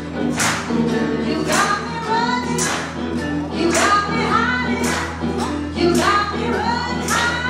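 Live blues band playing: several voices singing together over the band, with a tambourine shaken on the beat about once a second.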